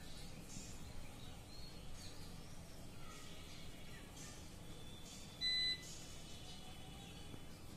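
Faint bird chirps in the background, with one short electronic beep about five and a half seconds in, the loudest sound.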